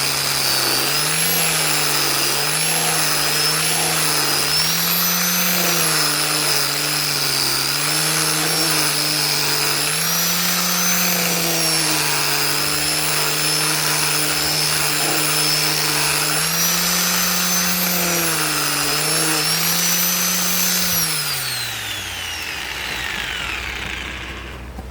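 Electric sander running on a mahogany wooden box, its motor pitch sagging and recovering as it is pressed into the wood and eased off. About 21 seconds in it is switched off and winds down to a stop.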